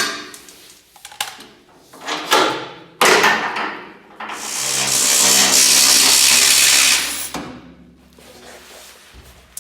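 A handheld power tool in use on a truck: a few short bursts in the first four seconds, then one steady run of about three seconds, with clicks and clatter of parts and tools around it.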